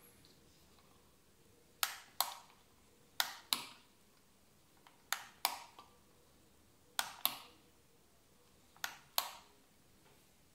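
Push-button switch on the base of an IKEA Sunnan solar LED lamp clicked five times, switching the lamp on and off. Each press is a sharp double click, and the presses come a second or two apart.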